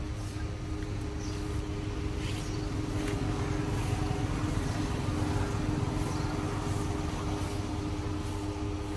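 A vehicle engine running steadily: a low rumble with a steady hum, and a few faint clicks.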